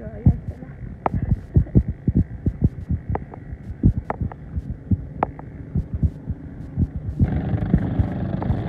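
Wind buffeting a handheld phone microphone, heard as irregular low thumps several times a second. About seven seconds in it changes to the steady drone of boat engines.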